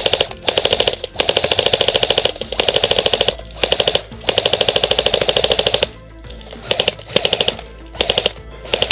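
Airsoft electric guns firing full-auto in a string of rapid bursts, each up to about a second and a half long, with shorter, clipped bursts in the last few seconds.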